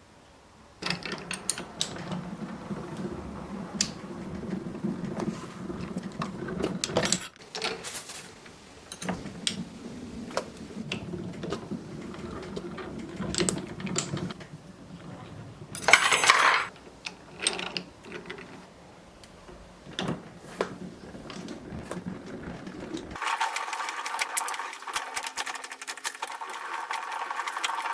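Small workshop machine running with a steady hum, with sharp metal clicks and clinks, as sterling silver is worked into wire. There is a loud burst of noise about halfway through, and the hum gives way to a higher, thinner running sound near the end.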